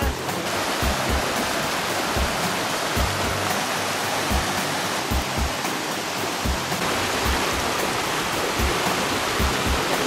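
Steady rush of a shallow stream running over rocks, with background music carrying low, irregular bass thuds over it.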